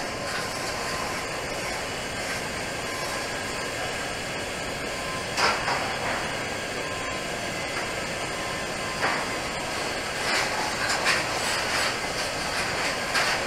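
TIG welding arc on a 12-inch pipe joint, a steady hiss that gets briefly louder a few times, once about five seconds in and several times near the end.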